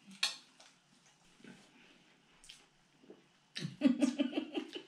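A sharp click about a quarter second in, then a woman's short burst of laughter from about three and a half seconds in, broken into quick pulses.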